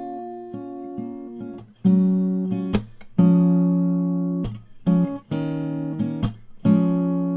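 Background music: acoustic guitar strumming and plucking chords, growing louder about two seconds in.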